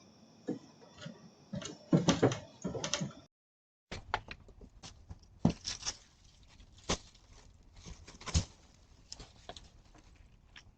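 A string of sharp knocks and clicks, with a loud cluster of knocks about two seconds in. The sound cuts out completely for about half a second just after three seconds in, then irregular single clicks and knocks go on.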